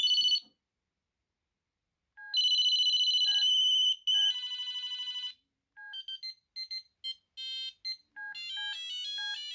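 Ericsson A2618s mobile phone playing previews of its built-in monophonic ringtones, one tone at a time, with short beeps in between. A long steady high beep gives way to a buzzing pulsed tone, then from about six seconds in a quick stepping melody.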